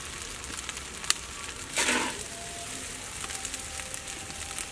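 Fried rice sizzling in a hot wok as it is stir-fried, a steady hiss with a sharp click about a second in and a louder, brief scrape-and-toss sound a little under two seconds in.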